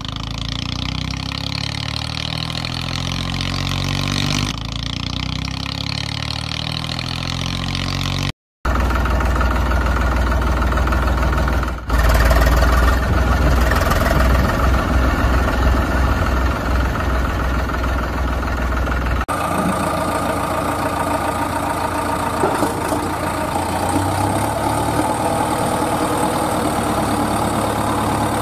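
Heavy engine running at idle in several spliced sections that change abruptly, with a brief cutout about eight seconds in. After the cutout comes a louder, deeper stretch with a throbbing beat.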